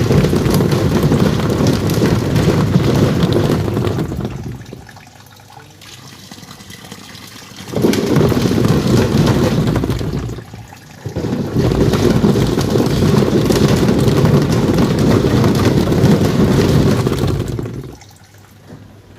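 Twin-tub washing machine's wash tub churning foamy water, running in three loud spells of a few seconds each with short quieter pauses between, then dying down near the end.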